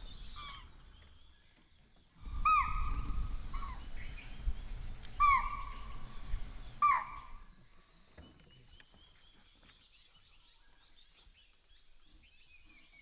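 Chital (spotted deer) giving sharp, shrill alarm calls, about four within five seconds, over a low rumble and a steady high insect drone. The calls are the deer's warning that a tiger is close by.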